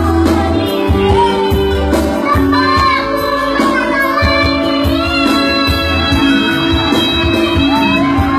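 A young child singing a gliding, ornamented melody over backing music with held bass notes.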